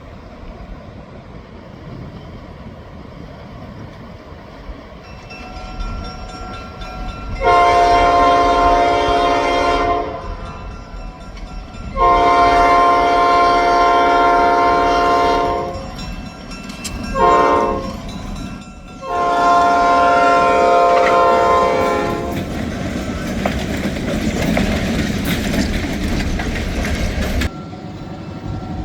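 Diesel locomotive horn, an Escanaba & Lake Superior SD9's, blowing a long, long, short, long sequence: the standard signal for a grade crossing. Under it the locomotive's engine and the train's wheels rumble, louder in the second half as the train comes by.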